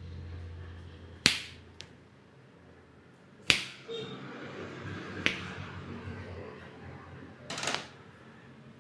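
A barber's hands giving sharp slaps during an Indian head massage: four crisp strikes about two seconds apart, the last a short, quick cluster.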